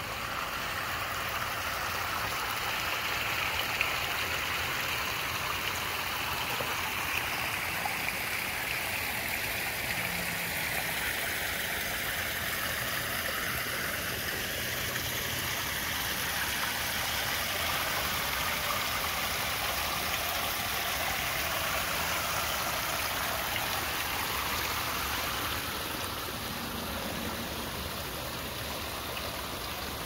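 Water splashing steadily over small rock waterfalls into a koi pond stream, a continuous rushing and trickling that eases slightly near the end.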